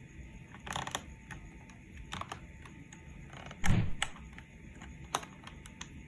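Irregular plastic clicks and taps from a mechanical keyboard as its keycaps are pried off, with a heavier thump nearly four seconds in.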